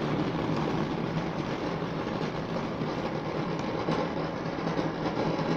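Ground fountain firework spraying sparks with a steady rushing hiss and a fine crackle.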